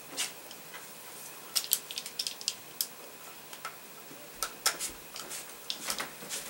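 Hand ratchet clicking in short irregular groups of sharp metallic ticks as it turns out the T30 Torx bolts holding the shift solenoids on an automatic transmission valve body.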